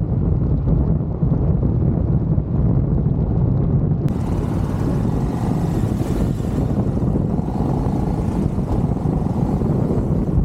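Steady low rumble of a motorcycle being ridden, the KTM 1390 Super Duke Evo R's V-twin running at an even pace, mixed with wind rushing over the microphone.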